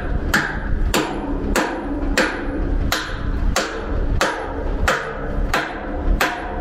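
Heavy metal-on-metal hammer blows in a steady rhythm, about ten strikes roughly two-thirds of a second apart, each leaving a short ringing tail.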